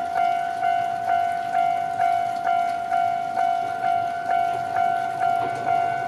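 Japanese level-crossing alarm bell ringing at about two strikes a second, each strike a bright ringing tone. A low rumble starts to build near the end.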